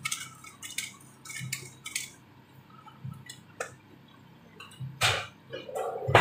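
Pepper mill being twisted by hand, a quick run of crunchy grinding clicks over the first two seconds, then only a few scattered clicks. Two louder knocks near the end, over a low steady hum.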